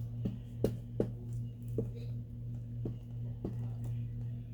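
Light taps and rustles of paper pieces being handled and laid down on a craft table, about six short clicks over the few seconds, over a steady low electrical hum.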